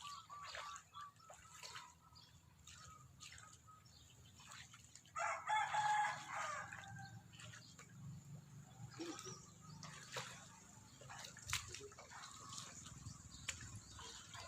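A rooster crowing once, a single pitched call of about two seconds, about five seconds in, over faint scattered clicks and knocks.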